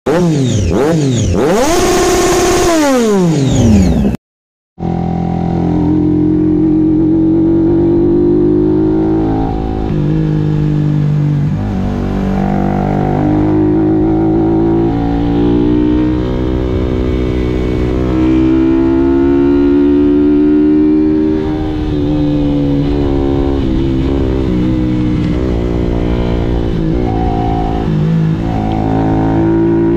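Sport motorcycle engine heard from on the bike, its pitch rising and falling with the throttle while riding. It starts after a brief silence that follows a few seconds of crossing tones sweeping up and down.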